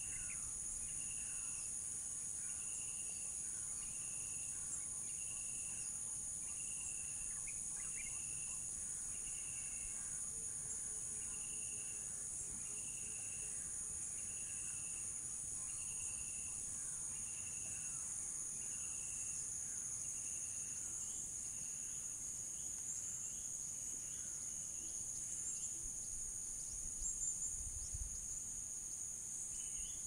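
Steady high-pitched drone of a chorus of crickets and cicadas. A short high note repeats at an even pace, a bit more than once a second, and stops about two-thirds of the way through, with faint bird chirps scattered over it and a brief low rumble of wind near the end.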